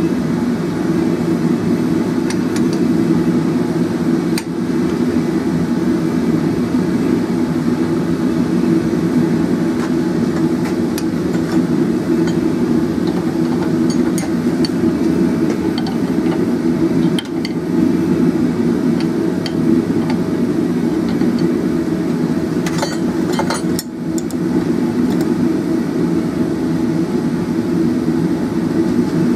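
Steady roar of a gas forge burner, with occasional light metal clinks and knocks from a steel hook being worked in a bench vise with a hand tool, a short cluster of them about three-quarters of the way through.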